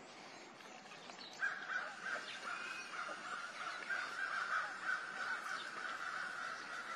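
A golden tabby tiger cub gnawing and crunching on a bone, with faint scattered clicks. About a second and a half in, a steady, fairly high-pitched sound starts and goes on, louder than the chewing.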